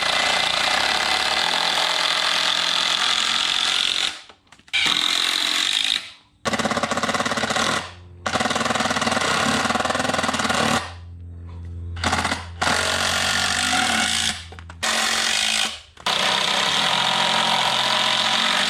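A power driver sinking 2.5-inch deck screws into lumber to join a window frame, running in a series of bursts of one to four seconds with short pauses between.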